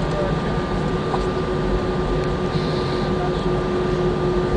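Airbus A320 cabin noise while taxiing: the steady rush of the engines and airflow, with a steady low hum and a fainter higher tone running through it.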